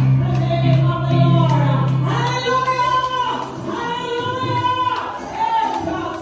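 A church congregation singing a gospel worship song, the voices holding long notes over a low held accompaniment note.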